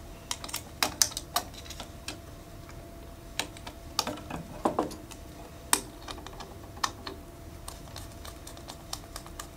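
Irregular small clicks and taps from hands working a wire onto the terminal screw of a plastic light fixture, the plastic base and wire knocking and rattling.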